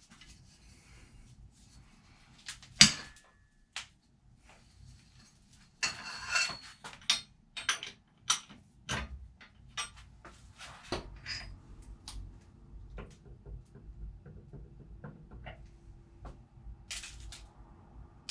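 Metal clanks and clicks of a socket and breaker bar working the crankshaft pulley bolt on a Subaru EJ257 boxer engine, with one loud sharp clank about three seconds in and a run of separate clinks a few seconds later, then lighter scraping as the crank pulley comes off.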